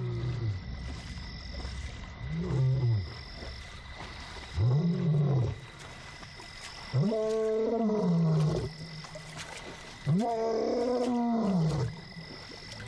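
Male lion roaring: four calls in a row, each rising then falling in pitch, growing longer and louder with each one. This is a long-distance contact roar, calling for a lost companion.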